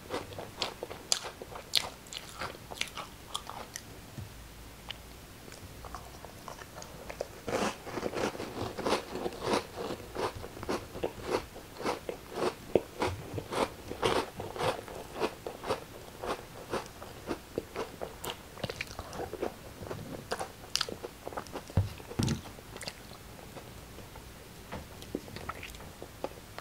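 Close-up crunching and chewing of crackers: quick, crisp crackles of the bites breaking up. They are densest through the middle and thin out toward the end.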